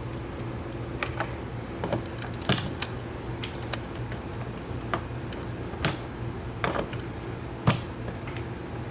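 About a dozen light, irregular clicks and taps from handling small parts, over a steady low hum.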